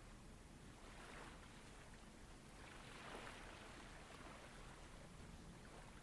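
Faint ocean waves washing in, with one swell of surf about a second in and another around three seconds.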